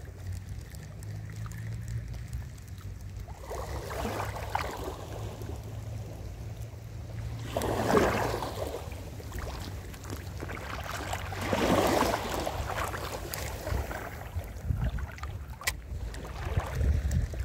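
Small waves washing over a shallow rocky shore in three swells about four seconds apart, with wind rumbling on the microphone throughout. One sharp click near the end.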